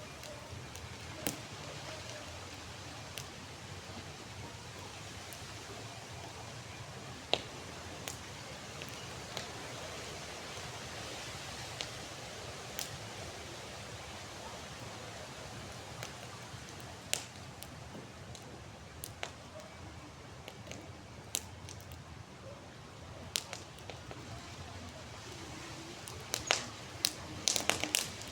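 Campfire burning with a steady hiss and scattered sharp crackles and pops from the wood, a quick run of pops near the end.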